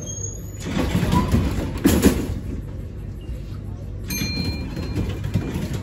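Running noise of a Z3-class tram heard by the doorway: a steady low rumble of wheels and running gear on the track. Louder rattling surges come about one and two seconds in, and a brief high squeal about four seconds in.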